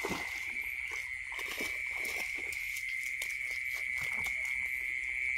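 Night insects trilling steadily at one high pitch, with irregular small clicks and rustles throughout.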